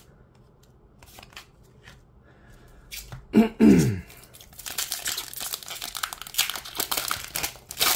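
Light card handling, then a short vocal sound falling in pitch about three and a half seconds in. From about four and a half seconds in, a Pokémon booster pack's foil wrapper is torn open and crinkled.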